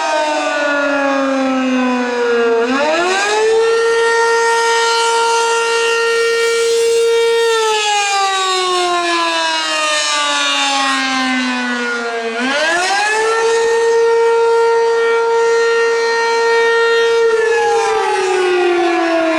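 ACA P15 fire siren sounding a test wail. It winds up quickly to a steady high pitch, holds for about four seconds, then winds slowly down, twice over.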